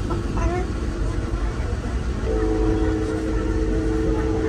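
A horn sounding a steady two-note chord, held for about three seconds starting about halfway in, over a constant low vehicle rumble.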